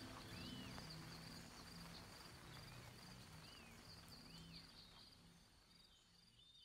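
Faint outdoor ambience: insects chirring steadily with a quick pulsing beat, and a bird giving several short rising-and-falling whistles, all fading away toward the end.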